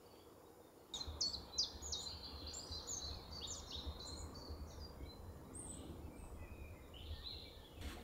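A small songbird singing outdoors: a quick series of short, high notes, each falling in pitch, lasting about six seconds, with a low rumble underneath.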